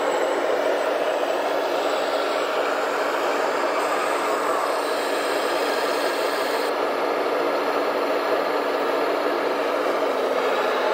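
Hydraulic pump of a radio-controlled Liebherr 970 model excavator whining steadily as the machine digs and swings its bucket in mud. The whine holds an even level, and its top end thins out a little past halfway.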